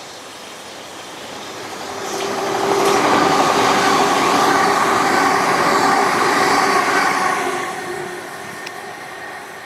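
A train passing the crossing: its noise builds over about two seconds, holds loud for about four seconds with a faint steady hum of a few tones in it, then dies away near the end.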